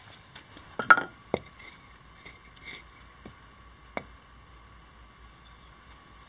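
A few sharp knocks of wood being handled on stone paving: the loudest about a second in, with a smaller one just after, and another at about four seconds as a seasoned beech log is stood upright on the paving.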